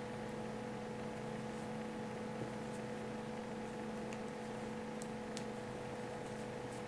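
Steady electrical hum with faint hiss, and a few faint, sharp ticks of double-pointed knitting needles touching as stitches are worked.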